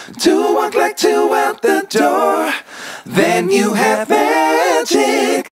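Unaccompanied singing in short melodic phrases, with no instruments or beat, stopping abruptly.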